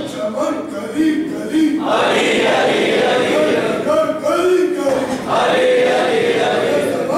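A congregation of voices chanting together in unison, in repeated phrases of about two seconds each.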